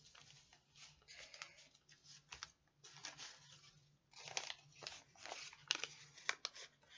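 Paper dollar bills rustling and crinkling as they are handled and sorted, a string of short, faint crackles that get busier and louder in the second half.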